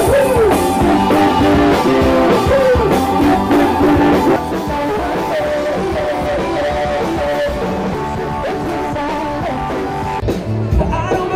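Rock band playing live: electric guitar and drum kit with a singer's voice gliding over them.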